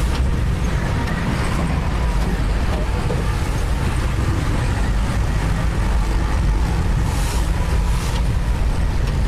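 Diesel engine of a piece of construction machinery running steadily with a low drone, a noisy hiss laid over it.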